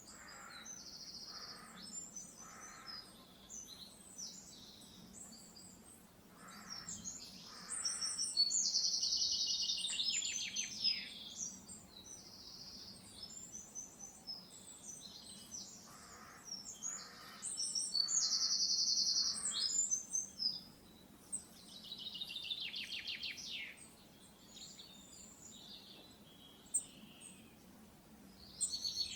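Several wild birds singing and calling: high buzzy trills and quick chirps, two long trills that fall in pitch about ten seconds in and again near twenty-two seconds, and lower short repeated calls now and then.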